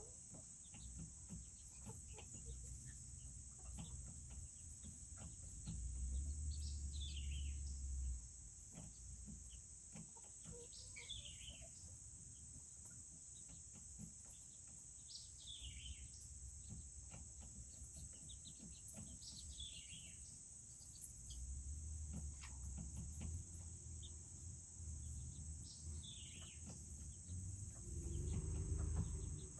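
Steady high trilling of crickets, with about five short bird chirps falling in pitch spread through it. There are a few low rumbles, the loudest near the end.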